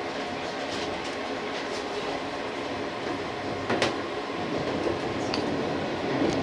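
JR 185 series electric train running, heard from inside the driver's cab: a steady running noise with a few sharp clicks, the loudest about four seconds in.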